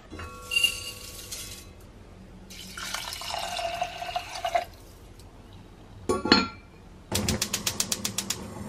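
A ringing clink, then water poured into a Staub cast-iron pot of rice for about two seconds, its pitch rising as the pot fills. The heavy lid clanks on, then a gas hob's igniter clicks rapidly, about eight clicks a second, and the burner catches with a steady hiss.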